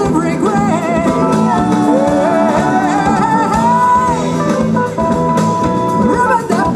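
Live jazz-pop band: a woman sings a melody with vibrato over electric guitars, bass and keyboard, holding a long note about halfway through.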